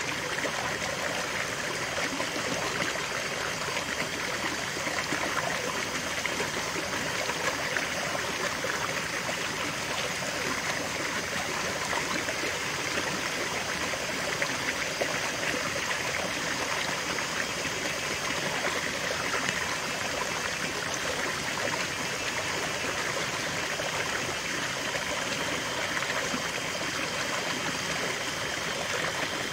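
Shallow rocky stream running, water spilling in a small cascade over rocks into a pool: a steady, even rush and babble of water.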